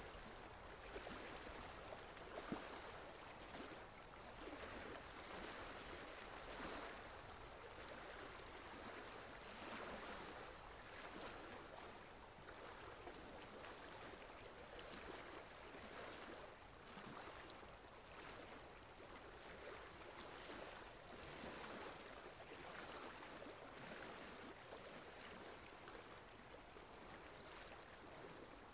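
Faint water ambience of waves washing, a steady rush that swells and eases every few seconds.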